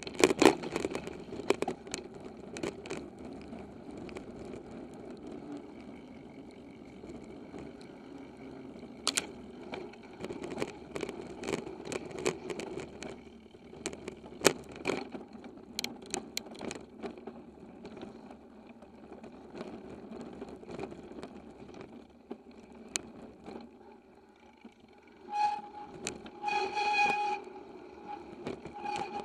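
Giant XTC 2 hardtail mountain bike ridden over rough singletrack, heard from a handlebar mount: steady tyre rumble with frequent sharp rattles and knocks from the bike over bumps. Near the end a pitched tone with overtones sounds for a few seconds.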